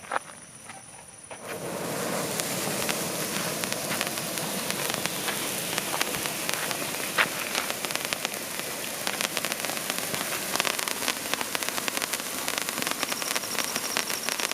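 Waterfall pencil firework burning: a steady hiss of sparks dense with sharp crackles, starting about a second and a half in.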